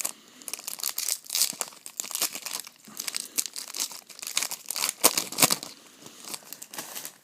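A 2012 Bowman Chrome trading card pack being torn open and its wrapper crinkled by hand, with irregular crackles throughout, loudest about five seconds in.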